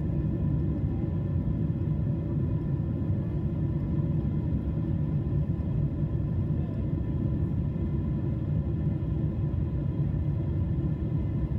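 Cabin noise of a Boeing 777-300ER on its takeoff roll: its GE90 engines at takeoff thrust and the airframe rolling down the runway, a steady low rumble with a faint hum above it.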